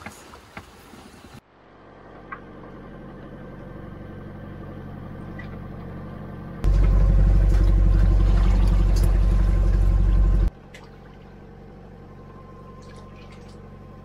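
A motor running steadily with a low, even hum. It is much louder for about four seconds from just before the middle, with a few light clicks near the start.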